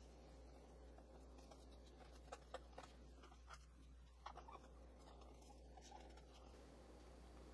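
Near silence with a steady low room hum and a scatter of faint clicks and light scrapes, most of them in the middle, from a metal offset spatula smoothing buttercream on the side of a cake.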